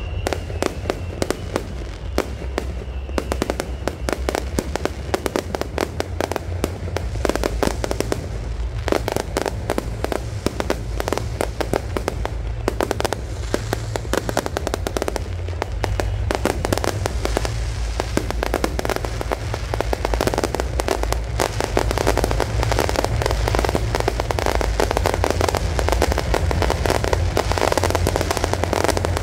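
Yanshui beehive fireworks (bee-swarm rockets) going off: a rack of bottle rockets firing in a dense, continuous rapid crackle of pops and bangs over a low rumble, growing denser and louder in the second half.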